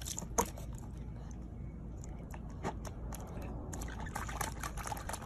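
Puppy splashing and lapping at water in a small plastic tub, with scattered clicks and splashes.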